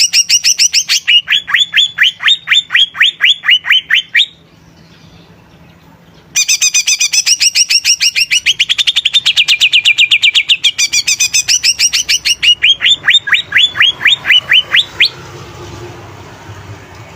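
Cucak ijo (green leafbird) singing a loud, rapid string of chattering notes that turns into runs of quick downward-sweeping whistles. It sings two such phrases with a pause of about two seconds between them, and falls silent near the end.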